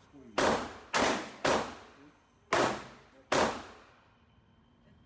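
Five shots from a Glock pistol, each with a short ringing decay: three quick shots about half a second apart, a brief pause, then two more, followed by quiet.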